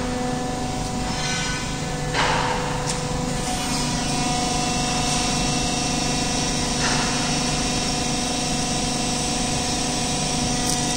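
Press brake running: its motor gives a steady hum made of several even tones, with a knock about two seconds in.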